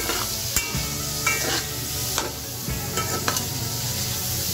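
Button mushrooms, onion and garlic sizzling in oil and butter in a nonstick wok, stirred with a spatula that scrapes and taps against the pan again and again.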